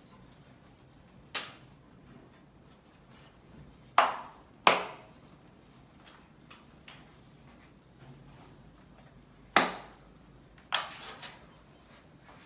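A few sharp clinks and knocks of tools and bicycle parts being handled during reassembly: one about a second in, two close together about four seconds in, then two more near the end, each ringing briefly.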